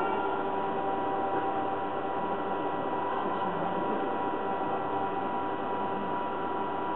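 Steady mechanical hum and hiss with several held tones, unbroken and without any knock or blast.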